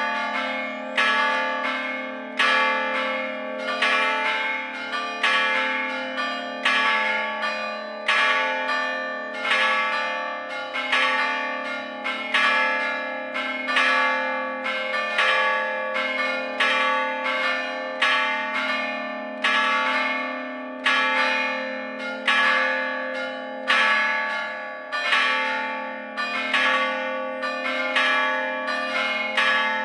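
Full peal of the church's four Gescher-cast bells hung in an open campanile. The bells are not swung but struck by hammers, giving a steady, slightly irregular run of strikes less than a second apart, with the bell tones ringing on and overlapping between blows.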